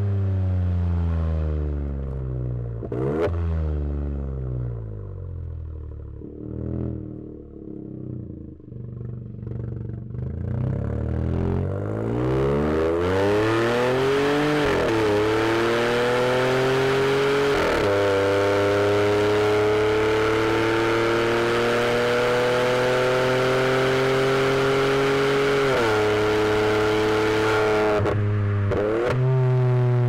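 Turbocharged VW Polo TSI engine, remapped to stage 2 and fitted with an aftermarket exhaust. The engine note falls away off throttle for the first ten seconds or so, then climbs under hard acceleration, broken by short dips at the gear changes.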